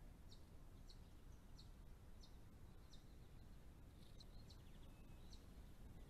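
Faint, short, high chirps of a striated pardalote, about ten of them spaced roughly half a second apart, over a low steady background rumble.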